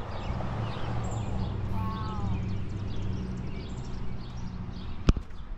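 Outdoor background of small birds chirping over a steady low hum, with a single sharp knock about five seconds in.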